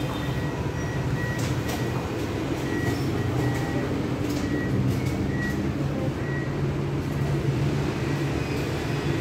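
Steady low hum and background din, with short faint electronic beeps at irregular intervals and a few light clicks.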